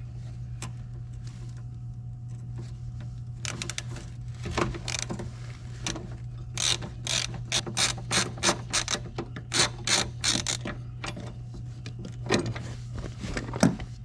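Ratcheting screwdriver clicking in three runs of quick clicks, about four a second in the longest run in the middle, as it turns a bolt.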